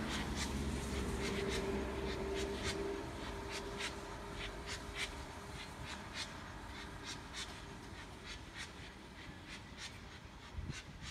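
Steam locomotive chuffing as it pulls away, its exhaust beats coming roughly two to three a second and growing fainter as it draws off, over a low rumble that dies down after the first few seconds.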